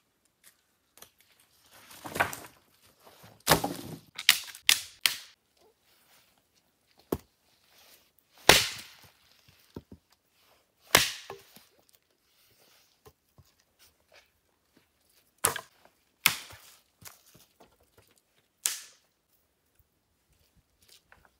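Dry sticks and branches snapping as they are broken, about ten sharp cracks at irregular intervals with quiet gaps between.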